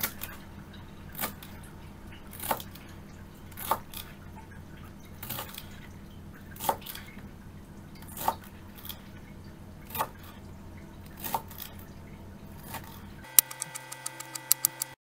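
A kitchen knife chopping fresh dill on a plastic cutting board: a sharp tap of the blade against the board about every second and a half. Near the end the taps come quickly, one after another.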